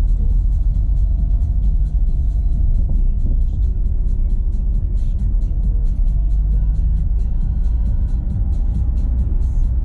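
Renault Sandero Stepway 2 driving on a dirt road: a steady low rumble of tyres and suspension. Music with a steady beat plays over it.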